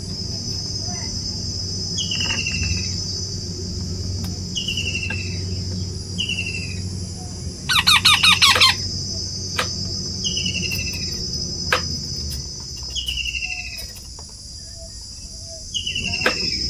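A steady high-pitched insect buzz, with a short falling bird chirp every two to three seconds. A loud, rapid run of pulsed bird calls comes about eight seconds in.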